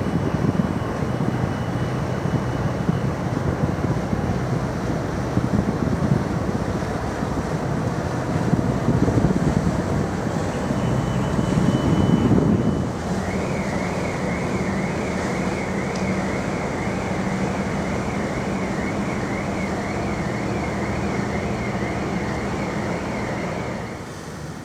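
Wind buffeting the microphone over a steady low engine hum. The gusts swell until about halfway through, then ease. A faint, evenly wavering high whine sets in just after halfway.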